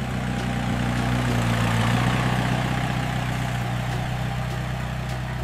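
Tractor engine running steadily with a low, even drone.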